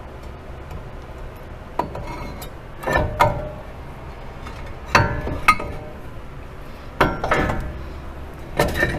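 Separate sharp metallic clinks and knocks, about eight of them spread out, some with a short ring: steel brake parts and bolts being handled and set on a truck's front wheel hub, the caliper bracket going back on.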